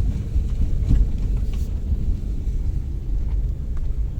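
Steady low rumble of a car, heard from inside, with a few faint light clicks.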